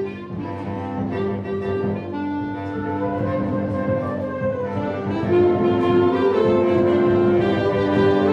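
Student concert band playing live: saxophones, clarinets and brass with a tuba in sustained chords that change every second or so, growing louder about five seconds in.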